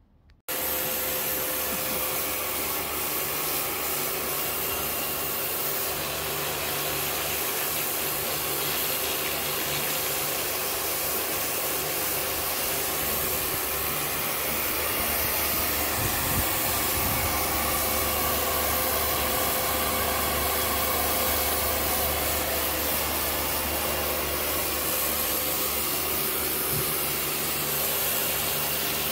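Pressure washer running steadily, its pump motor humming under the hiss of the high-pressure jet blasting grime off patio paving slabs. It starts suddenly about half a second in.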